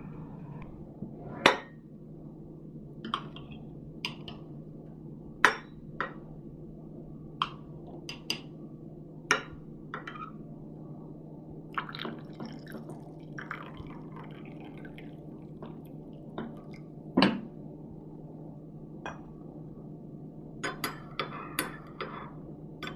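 Scattered light clinks and taps of glass or dishware, some with a short liquid sound, over a steady low hum.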